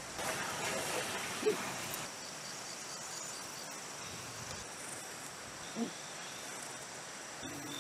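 Steady high-pitched insect chirring in the background, with light rustling as a steel square is handled and set against a log in the first two seconds. Two brief faint rising calls come about one and a half and six seconds in.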